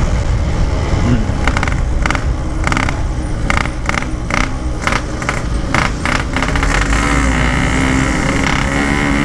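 Yamaha RX-King 135 cc two-stroke single-cylinder motorcycle running at road speed, with heavy wind rumble on the onboard microphone. A string of short sharp knocks comes in the first half, then a steadier engine note holds near the end.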